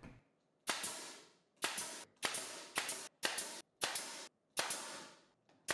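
Pneumatic brad nailer firing 2-inch brad nails into an MDF grid piece: about seven sharp shots in a row, each trailing off briefly, half a second to a second apart.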